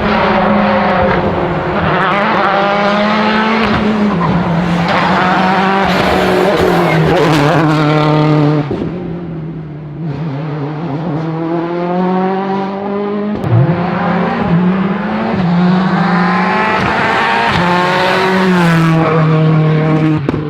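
World Rally Car engine at full throttle, revs climbing and dropping again and again through upshifts, easing off about halfway through before pulling hard again. A single sharp crack partway through.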